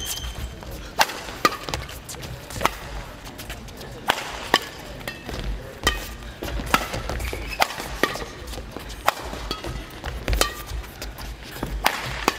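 Badminton rally: racquets striking a feather shuttlecock, a sharp crack about once a second at an uneven pace, with court shoes squeaking briefly on the court mat between strokes.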